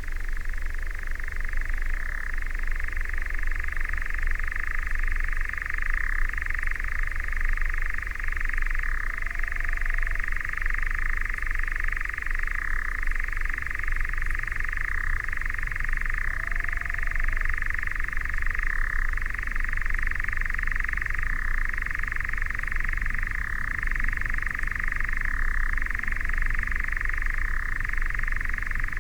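European nightjar churring: one long unbroken trill that shifts briefly about every two seconds, over a low rumble.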